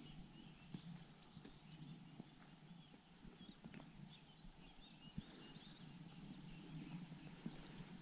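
Faint footsteps on stone paving at a walking pace, with small birds chirping and twittering, most busily near the start and again past the middle.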